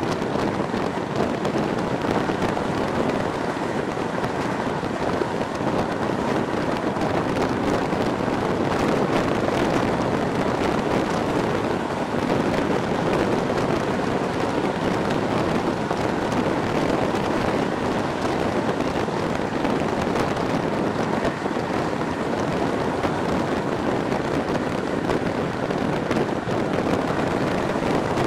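Train running along the track, heard at an open coach window: a steady rush of wheel and rail noise mixed with wind blowing past.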